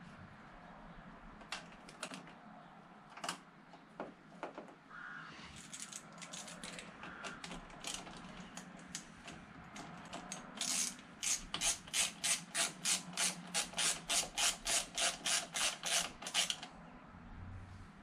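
Ratchet wrench clicking as it tightens the small nut that holds a motorcycle's rear brake fluid reservoir to its bracket. A few scattered clicks come first, then about ten seconds in a steady run of clicks at roughly three a second, which stops shortly before the end.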